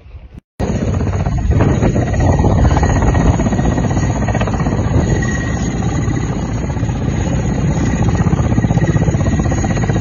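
Mil Mi-8 helicopter running on the ground with its rotor turning: a loud, steady engine whine over a rapid rotor beat. It starts after a brief cut about half a second in.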